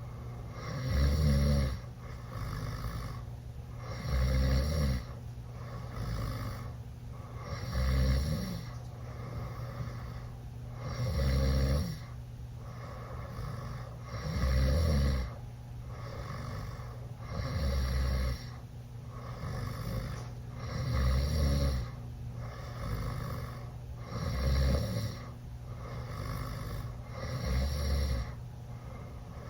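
A teenage boy snoring loudly with his mouth open after drinking alcohol. There are nine heavy snores in slow, even rhythm, about one every three and a half seconds.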